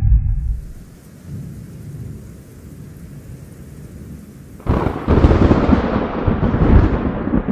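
Steady rain hiss, then about two-thirds of the way through a sudden loud thunderclap that rumbles on.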